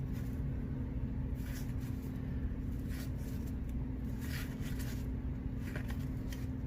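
Steady low hum, with faint rustles and light clicks every second or so from paper trading cards being handled and flipped through.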